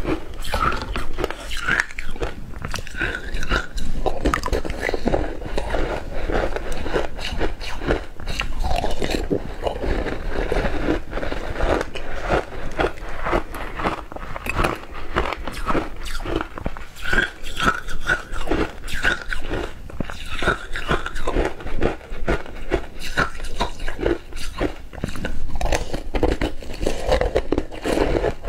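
Shaved ice crunched and chewed close to the microphone: a continuous run of irregular crisp crunches with wet chewing.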